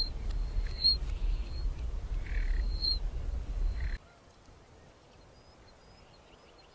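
Short high bird chirps repeating about once a second over a loud low rumble of wind on the microphone. About four seconds in, this cuts to a much quieter recording with faint high chirps and a few short downward-sliding calls.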